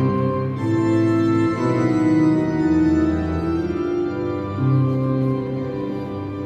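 Organ music playing slow, sustained chords, the notes held and changing about once a second.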